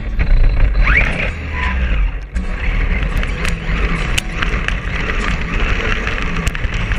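RC monster truck driving over pavement and then grass, heard from a camera mounted on its body: a heavy low rumble with rattles and knocks from the chassis and tyres. A short rising motor whine comes about a second in.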